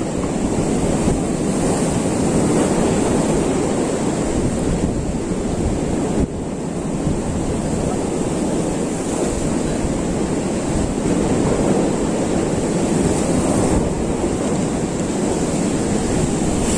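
Sea surf breaking on a rocky shore in a steady, continuous rush of water, with wind buffeting the microphone.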